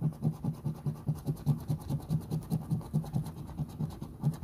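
A coin scratching the coating off a scratch-off lottery ticket in quick, even back-and-forth strokes, about five a second.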